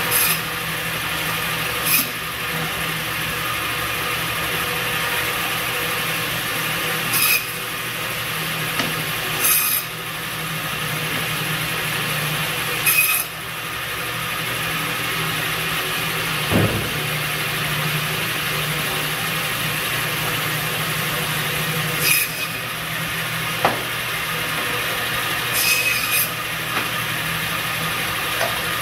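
Biro Model 55 meat band saw running with a steady hum while pork loins are cut into Western ribs. Brief louder rasps come every few seconds as the blade goes through the meat.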